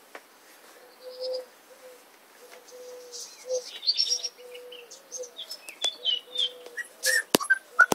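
Four-week-old golden retriever puppies squeaking and whimpering in short, high, scattered calls, busier in the second half. There is a sharp click a little after seven seconds.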